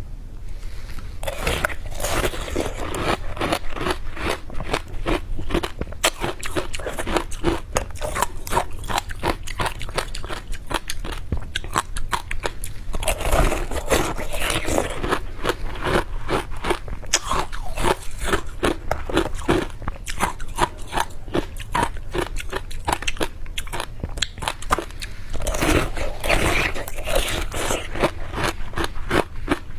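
Close-up crunching and chewing of powdery soft ice, a rapid run of crisp crunches. Louder stretches of biting come near the start, about halfway through and near the end.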